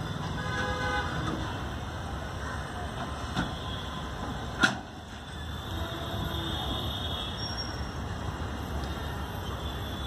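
Container freight train wagons rolling past with a steady low rumble. A horn toots briefly about a second in, and a single sharp clank stands out near the middle.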